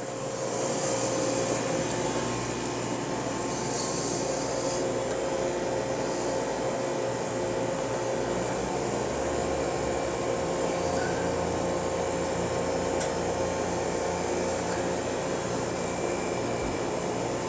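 A machine running steadily: an even whirring rush with a faint constant hum, as from a motor-driven fan.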